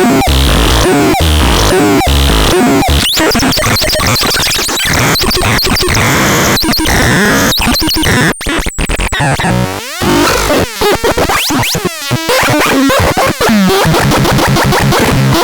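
ASMAR C1002TN putting out loud electronic tones: repeated short pitch sweeps at first, then rapid stuttering pulses with a few brief dropouts after about eight seconds, and fast even pulsing near the end.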